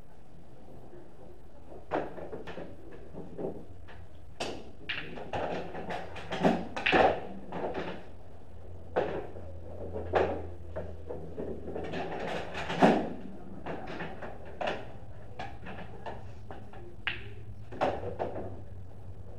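Pool balls being shot: sharp clicks of cue on cue ball and ball on ball, with knocks of balls dropping into the pockets, a dozen or more strokes scattered through the run with busier clusters in the middle. A steady low hum runs underneath.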